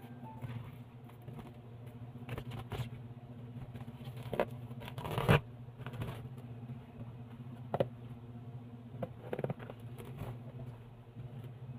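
Bubble wrap and packing tape being cut with scissors and pulled off a cardboard box: scattered crinkles, scrapes and snips, the loudest about five seconds in, over a steady low hum.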